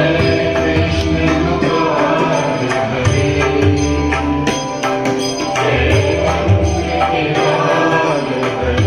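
Hindu devotional music: chanted or sung voices over sustained instrumental tones and a regular percussion beat.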